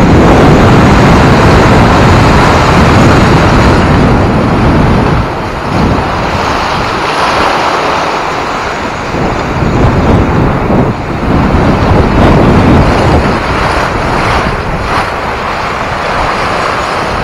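Lake waves surging through floating slush ice against the edge of a shore ice shelf, with a steady wind rumble on the microphone.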